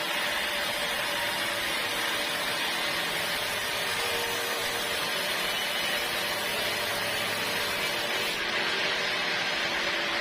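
Sawmill saw machinery running with a steady, even whirring noise.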